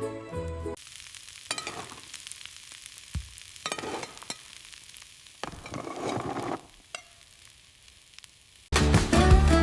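Food sizzling in a frying pan while being stirred, with scattered utensil clicks and scrapes. Music plays for a moment at the start and comes back loudly near the end.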